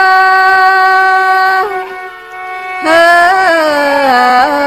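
Tai (Thái) folk song melody from Northwest Vietnam: one melodic line of long held notes that slide up and down in pitch, breaking off briefly about two seconds in, as if for a breath.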